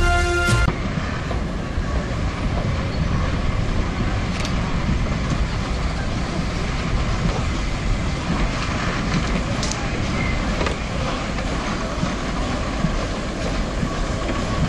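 Peppercorn A1 Pacific steam locomotive 60163 Tornado rolling slowly tender-first along a station platform: a steady rumble of wheels on rail, with a couple of sharp clicks along the way.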